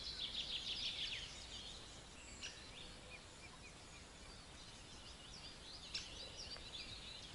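Faint songbirds singing: a quick run of repeated notes in the first second, scattered chirps through the middle, and busier song again near the end, over a low background hush.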